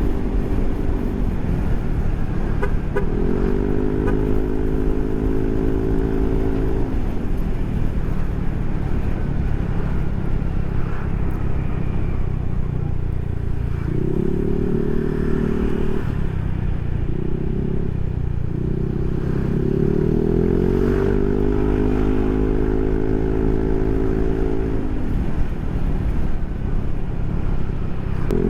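Yamaha NMAX scooter's single-cylinder engine running through a Proliner SR Neo Silent aftermarket exhaust while riding. Its note rises as the throttle opens about three seconds in, holds, then drops. It rises and falls again several times between about 14 and 25 seconds, the longest pull near the end, over a steady low rumble.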